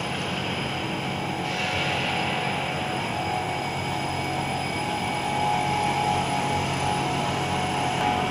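PVC ceiling-panel production line running: a steady machinery drone with a low hum and a few steady whining tones, growing slightly louder about five seconds in.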